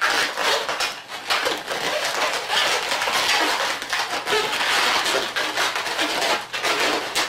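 Latex twisting balloons rubbing against each other as they are handled and wrapped around one another: a continuous, uneven rubbing and scrunching with quick pulses.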